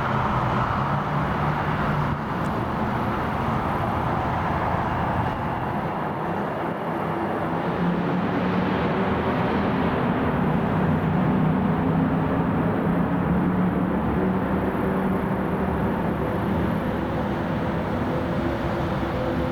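Bombardier CRJ-900 regional jet's twin rear-mounted turbofans running with a steady roar and a low hum, swelling a little in the middle.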